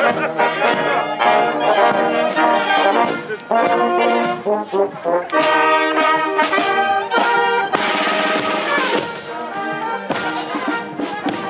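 Marching brass band playing as it passes: trombones, trumpets and tubas sounding together. About eight seconds in there is a brief burst of hiss for about a second.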